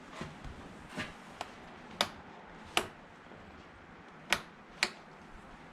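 Six sharp single clicks, irregularly spaced about a second apart, from a vehicle's ignition as someone tries to start it and it does not crank.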